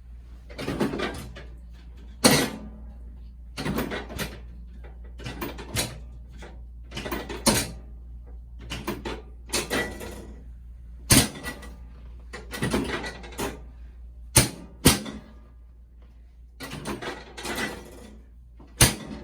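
Handling noises of a hands-on chiropractic adjustment on a treatment table: irregular rustling and shuffling about once a second, with about five sharp, louder knocks spread through.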